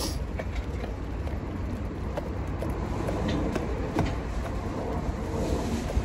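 Steady low outdoor rumble of street traffic and wind on the microphone, with a few faint clicks.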